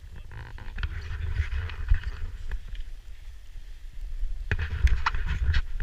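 Skis hissing and scraping over packed snow, with wind rumbling on the camera's microphone; a louder stretch of edge scraping and clicks comes near the end.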